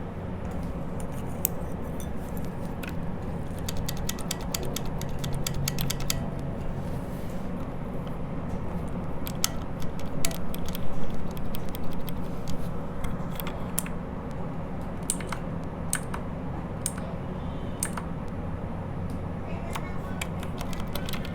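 Typing on a mechanical keyboard fitted with factory, unlubricated Outemu Red linear switches: fast runs of keystrokes in the first six seconds or so, then scattered single presses. There is no click, only a plasticky clack of plastic striking plastic as the keys bottom out.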